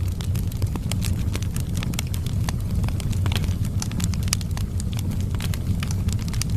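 Wood fire burning in a fireplace: a steady low rumble of the flames with many sharp, irregular crackles and pops, several a second.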